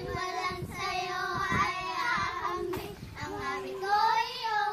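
Young girls singing a song together, with a long held note in the second half.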